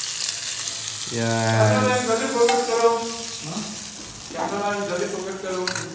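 Hot oil tempering with curry leaves sizzling on curd rice, loudest in the first second, then fading as it is stirred in with a slotted spoon. A person's voice with long held notes comes over it from about a second in.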